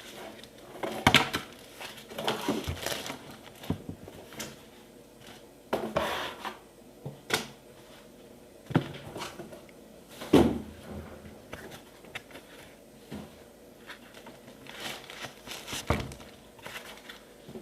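Packaging being handled as a boxed audio mixer is unpacked: plastic and cardboard rustling and crinkling, with scattered sharper knocks.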